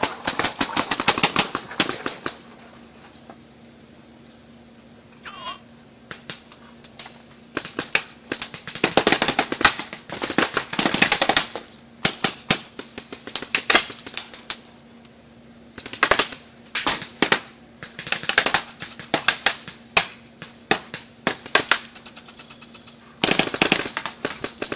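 Paintball markers firing during a game: rapid strings of sharp pops in bursts, with a lull of several seconds after the first volley and then volley after volley.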